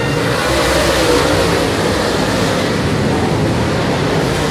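Dirt late model race cars' V8 engines running hard in a pack, a loud and dense engine noise. One car passes close with its engine note rising about a second in.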